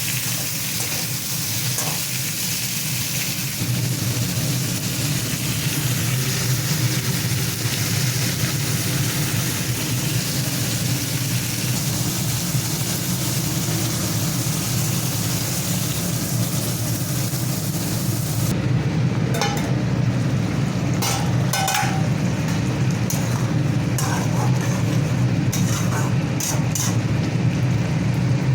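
Food frying in hot oil in a pan, sizzling steadily over a steady low hum. About two-thirds through the sizzle thins out and a spatula clicks and scrapes against the pan as it is stirred.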